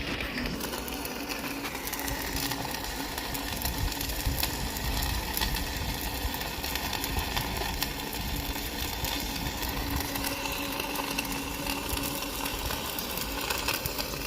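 Stick welding: the electrode's arc crackling and sizzling steadily as a bead is run, with a faint steady hum underneath.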